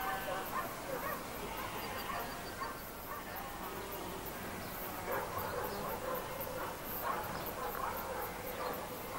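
Faint outdoor ambience with scattered distant animal calls, and a short run of high chirps about two seconds in.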